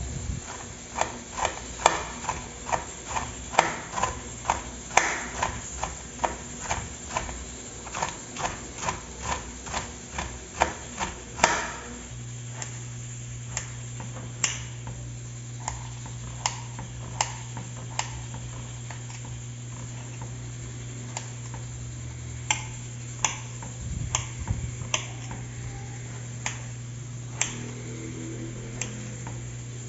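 A knife chopping salad vegetables on a cutting board: quick, even knocks about twice a second, then slower, scattered cuts. A steady low hum comes in partway through.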